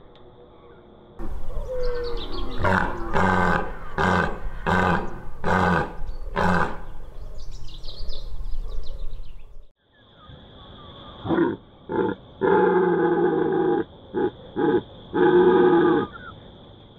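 Red deer stags roaring in the rut: a run of about six short roars in quick succession, then, after a break, another stag's series of roars with a couple of longer drawn-out ones among shorter calls.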